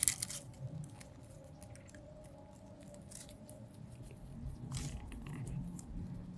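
Sheep grazing close by, biting off and chewing grass and plants: intermittent crunching and tearing, with a few sharper crunches near the start, around the middle and a little later.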